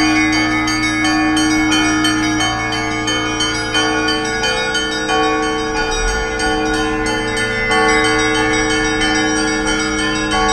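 Russian Orthodox church bells ringing: a quick, unbroken patter of small bells struck over the lingering tones of larger bells.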